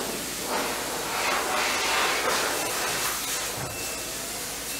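Paint spray guns hissing, the sound rising and falling in several swells.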